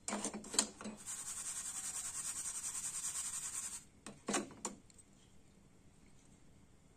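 Metal tongs clicking against an aluminium llanera and the stove grate, then a scratchy, quickly pulsing rasp of dry sugar grains sliding in the pan as it is shaken for about three seconds, ending with a few more clicks of the tongs.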